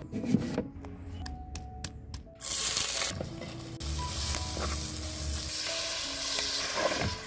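A few cleaver strokes through an onion on a wooden board, then a sudden loud sizzle about two seconds in as sliced onion and green chilies hit hot oil in a clay pot. The sizzling holds on while they are stirred with a wooden spoon, with a soft thump near the end as marinated chicken liver goes in.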